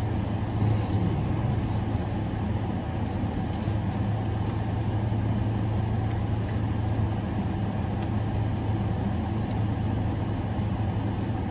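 Steady low hum of an idling car heard inside its cabin, with faint chewing sounds over it.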